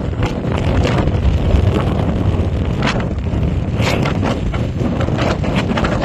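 Wind buffeting the microphone outdoors: a steady low rumble with irregular sharper crackles as gusts hit.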